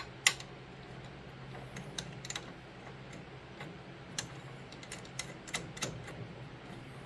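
Irregular light clicks and taps of bolts and metal parts being handled while bolts are fitted through the friction wheel's holes, the sharpest click about a third of a second in, over a steady low hum.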